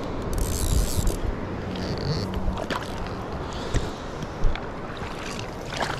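Water sloshing and splashing at the surface as a hooked rainbow trout fights on a fly line, with a brief hissy splash about half a second in and a few light clicks later.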